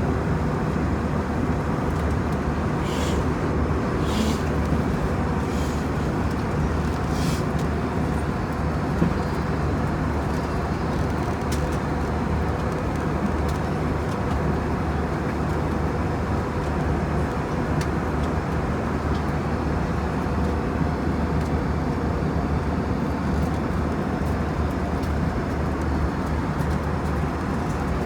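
Steady cabin noise of an Airbus A321 in flight: a constant rumble of airflow and its CFM56 turbofan engines, with a few faint clicks about three to seven seconds in.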